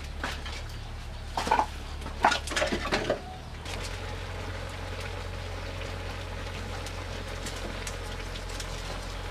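Spatula stirring shredded coconut cooking down into coconut jam in a wok, over a steady low rumble. A few short chicken clucks come between about one and a half and three seconds in.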